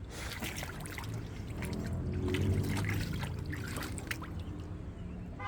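Water splashing and sloshing in a small dog pool as a dog noses after floating balls, many short splashes over a low rumble, a little louder in the middle.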